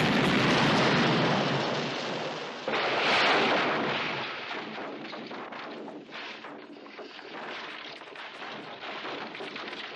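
A sudden loud blast as a car is launched through pyrotechnic fireballs, then a second sudden crash about three seconds in as the car slams into a dirt bank. The crash fades into a long, steady hiss.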